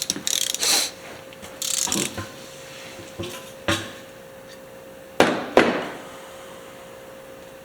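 Hand tools knocking and clicking against small metal IH carburetor parts during disassembly, a scatter of light knocks followed by two sharp knocks about five seconds in.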